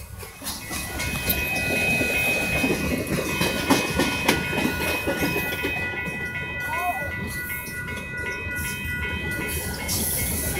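Freight train of boxcars rolling past a grade crossing: steady rumble and clatter of wheels over the rails. From about a second in, a steady high-pitched whine rides over it.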